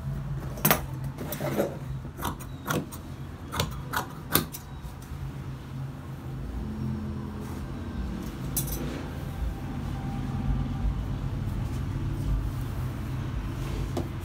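Handling noise: a string of sharp taps and clinks in the first few seconds as cut fabric pieces and tools are moved about on a wooden worktable, with a steady low hum underneath.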